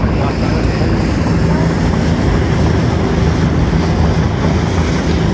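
Tour boat's engine running steadily, a constant low drone under an even rush of noise.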